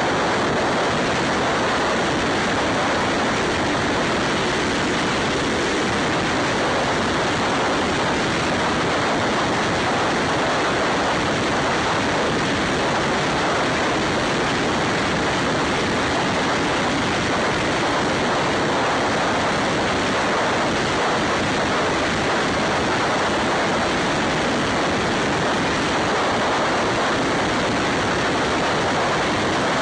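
Steady rushing wind noise on the microphone of a camera mounted on a motorcycle moving at road speed.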